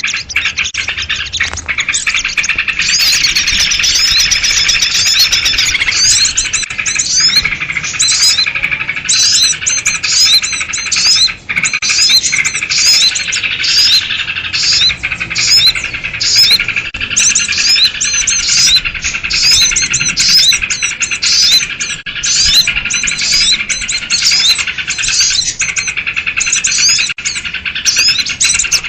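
A dense, noisy chorus of small birds chattering, with sooty-headed bulbuls (kutilang) calling: many quick, high chirps overlapping without a break. This is a bird-lure recording of excited, noisy birds, used to draw in small wild birds.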